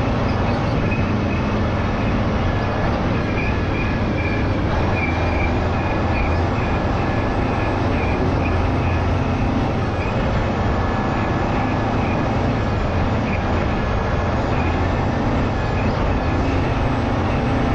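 Caterpillar 637C scraper's diesel engines running steadily under load, a loud even machine noise with a low hum and a thin high whine on top.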